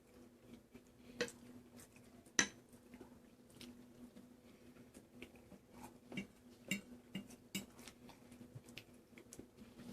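Cutlery clinking against a plate as pasta is eaten: scattered sharp clicks, the loudest about two and a half seconds in and a quick run of them in the second half, with quiet chewing between.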